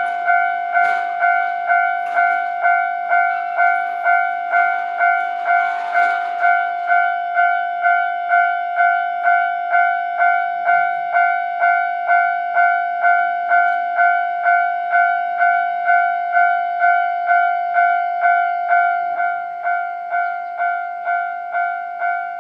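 Japanese railway level-crossing warning bell ringing, a steady repeated ding a little over twice a second. Some clattering noise underlies it for the first several seconds, and the bell grows slightly quieter near the end.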